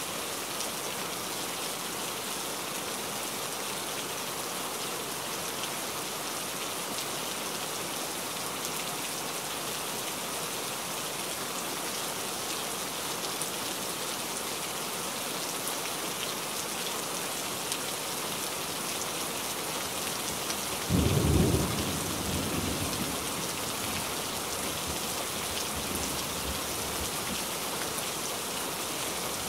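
Steady rain falling on dense forest foliage, an even hiss. About two-thirds of the way through, a sudden loud, deep rumble of thunder breaks in and fades off over several seconds.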